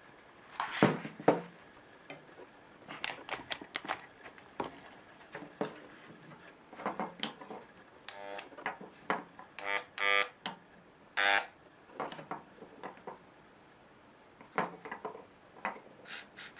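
Handling noise from the plastic housing of a variable-speed rotary tool being fitted back together, the tool not running: scattered clicks and knocks, the loudest about a second in, with a few short squeaky plastic creaks in the middle.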